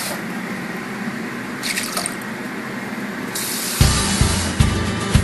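Kitchen faucet running water into a small bowl in a stainless steel sink, a steady splashing hiss. Near the end, music with a steady thumping beat comes in over it.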